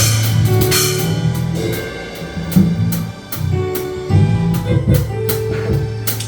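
Live church band playing a gospel groove: a drum kit keeping a steady beat under sustained bass and keyboard chords.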